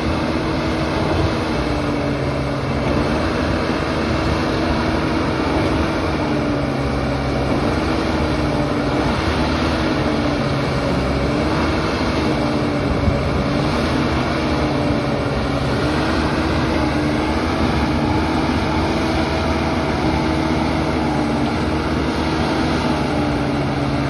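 The diesel engine of an ACE AX 124 backhoe loader runs steadily while the backhoe arm is worked. The engine note wavers slightly up and down with the load.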